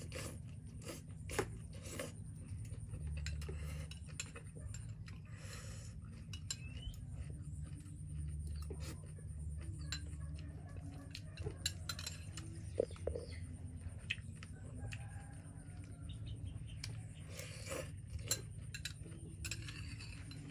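A metal spoon clinking and scraping on a plate now and then, with chewing, over a steady low rumble.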